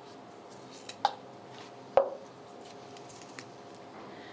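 Paper name slips rustling as a hand draws one from a canister and it is unfolded, with two sharp knocks about one and two seconds in, the second as the canister is set down on the table.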